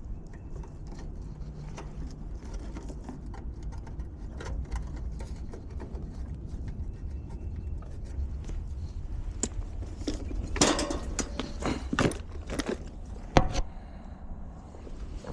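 A run of knocks and clatter, densest and loudest from about ten to thirteen and a half seconds in, over a steady low rumble.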